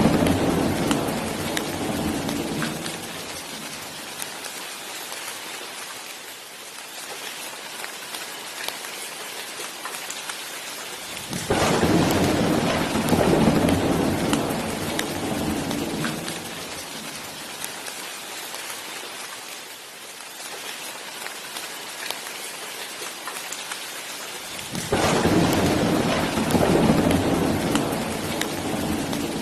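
Steady rain falling, with rolls of thunder: one dies away in the first few seconds, another breaks suddenly about eleven seconds in and rumbles off, and a third starts near the end.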